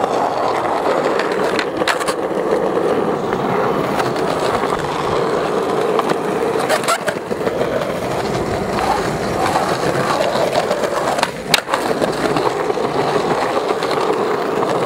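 Skateboard wheels rolling steadily over rough pavement, with a few sharp clacks: one about two seconds in, one about seven seconds in, and one near eleven and a half seconds.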